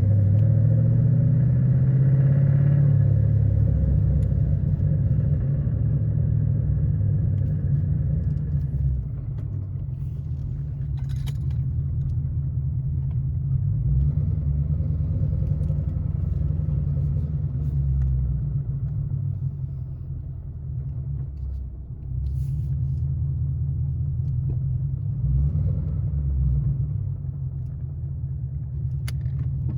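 2013 Ford Mustang GT's 5.0-litre Coyote V8 running with a steady low rumble, a little louder in the first few seconds. The owner takes the noise from this engine for rod knock.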